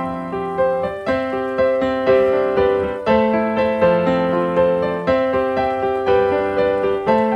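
Background piano music: a gentle melody of evenly paced notes over held chords, about two notes a second.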